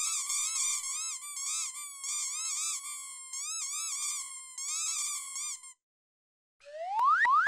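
Rubber duck squeak toys squeaking over and over, many high squeaks overlapping in quick succession for about six seconds. After a short silence near the end, a rising swoop sound effect starts and is followed by another.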